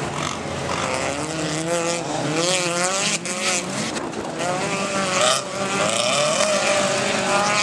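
Engines of small autocross race cars revving hard on a dirt track, their pitch rising and falling as they accelerate and shift, with more than one engine heard at once.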